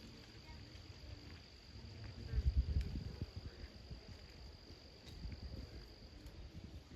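A cricket's steady, high-pitched trill that stops near the end, over a low rumble that swells about two and a half seconds in.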